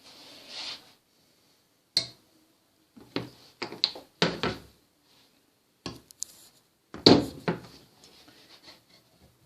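Irregular knocks, clinks and clatter of metal tools and parts being handled, with a brief scraping rub at the start.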